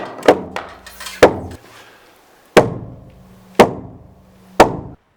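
Hammer blows on timber during barn framing: a series of sharp knocks with a short ring after each. The last three come about a second apart, and the sound cuts off suddenly near the end.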